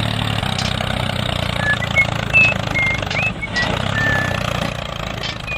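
An engine idling steadily with a low hum. Several short high whistled chirps come through the middle.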